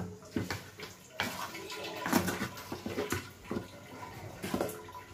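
Wooden spatula scraping and scooping thick boiled lentils (dal) in a non-stick kadai, with wet scrapes and irregular knocks against the pan.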